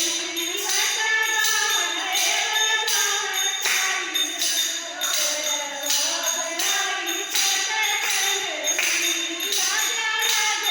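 A devotional bhajan sung with a tambourine or jingles keeping a steady beat.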